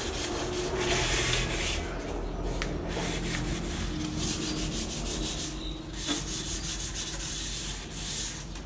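Fine 400-grit sandpaper rubbed by hand over a sealed wooden drawer front, in spells of quick back-and-forth strokes with short pauses: scuff-sanding the dried sealer coat smooth before the next coat.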